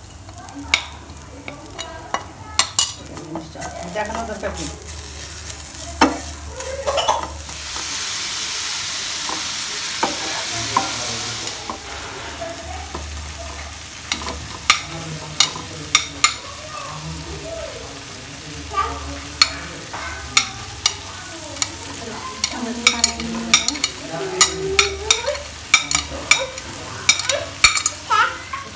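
Wooden spatula stirring and scraping onions, spices and diced tomatoes in a sizzling non-stick frying pan, with sharp clicks as it knocks the pan. A few seconds in, the sizzling gets louder for about four seconds. Near the end the spatula taps the pan in quick repeated knocks.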